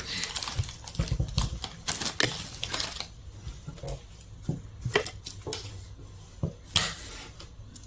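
Pieces of jewelry clicking and clinking together as they are rummaged through and pulled out by hand, a busy run of clicks for about the first three seconds, then scattered single clicks.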